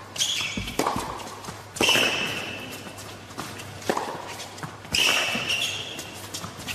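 Tennis ball struck with rackets during a baseline rally: several sharp hits about a second or more apart, some followed by a short high-pitched squeal.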